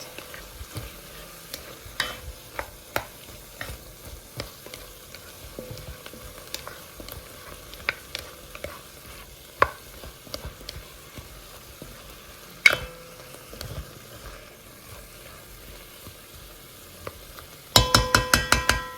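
Pork, onion and leek frying in a pan and being stirred: a steady sizzle with the utensil clicking and scraping against the pan now and then. Near the end, a quick run of about eight ringing metal taps on the pan.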